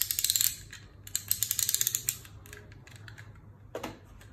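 Utility knife's blade slider ratcheting, a rapid train of clicks as the blade is pushed out and drawn back, in two runs. A single short knock follows near the end.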